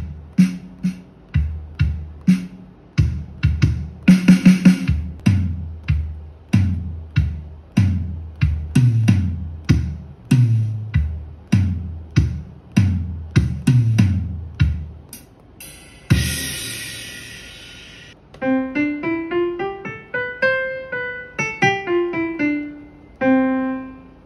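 Electronic drum sounds, kick and toms with a falling pitch and a quick roll about four seconds in, then a cymbal crash about sixteen seconds in. From about eighteen seconds a keyboard plays a run of single piano-like notes. All of it comes from an electronic instrument played through a Xiaomi Mi Portable Bluetooth Speaker (16 W) via its aux input.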